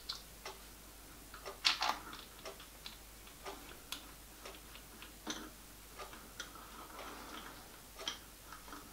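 Faint, irregular clicks and light metallic taps as a small steel screw clamp is fitted by hand onto a lathe mandrel, its parts knocking against the mandrel and collar.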